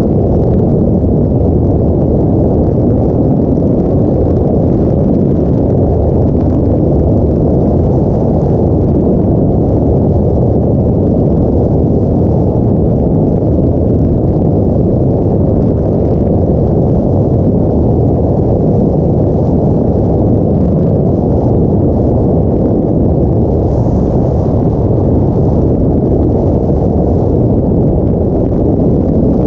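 Steady, loud, low wind rumble buffeting the microphone of a motorcyclist riding at speed.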